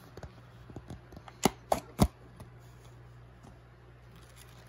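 Snap-on lid of a plastic deli cup being pried off: a few small clicks, then three sharp snaps within about half a second, followed by faint handling of the paper towel inside.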